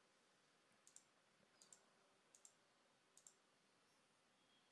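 Four faint computer mouse clicks, each a quick pair of ticks, about one every three quarters of a second.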